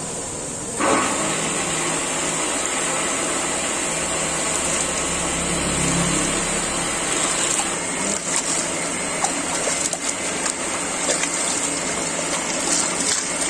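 Water sloshing in a large aluminium pot as raw meat pieces are washed by hand, under a steady rushing noise, with sharper splashes from about the middle on.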